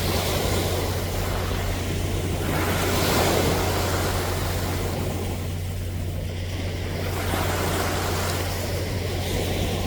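Sea waves washing onto the shore, the wash swelling and ebbing about every four to five seconds, over a steady low hum.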